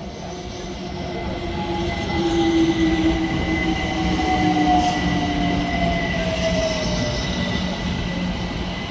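London Overground Class 378 Capitalstar electric multiple unit running slowly past along the platform. Its motors give a whine that falls in pitch as the train slows, over the rumble of the wheels and a thin, steady high squeal. The sound grows louder over the first few seconds as the train draws level.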